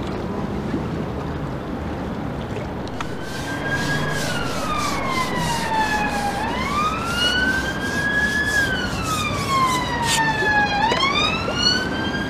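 An emergency vehicle siren wailing. It comes in about three seconds in and slowly rises and falls in pitch, about two full sweeps, over a steady background noise.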